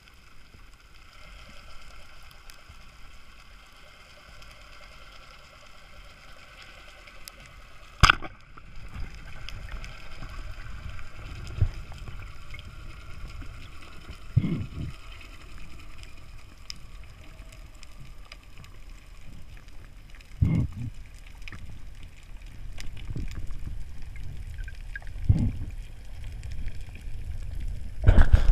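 Underwater noise as heard through a diving camera's housing: a steady low water rumble and hiss. A single sharp click comes about eight seconds in, with several dull knocks later and a louder cluster of knocks near the end.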